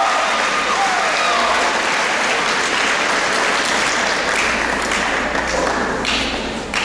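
Audience applauding and cheering, the applause dying down near the end, with a short sharp knock right at the end.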